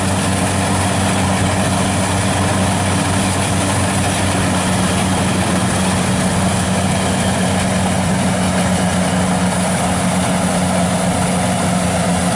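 Kubota DC-95 rice combine harvester running steadily as it cuts and threshes rice: a constant engine hum over the even rush of the machinery.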